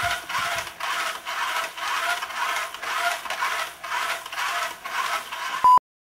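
Electric motor and gears of a radio-controlled truck whirring as its wheels spin with the truck held off the ground, the whirr swelling and dipping about twice a second as the throttle is worked. A short, loud beep tone sounds near the end.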